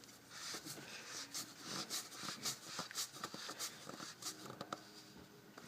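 Rapid light clicking and scraping of hand work at the oil filter housing, several clicks a second, as the new filter and its cap are fitted back into the housing. The clicks thin out near the end.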